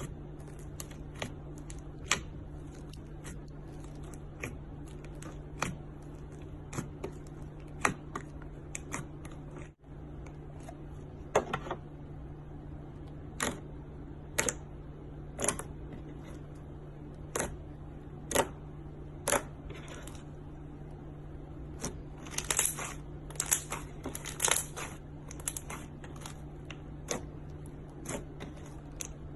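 Slime being pressed and stretched by hand, giving irregular sticky clicks and pops, with a denser run of crackling pops about three-quarters of the way through. A steady low hum sits underneath.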